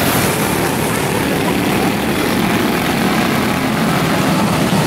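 Quarter midget race cars' small engines droning steadily as they run laps on the dirt oval.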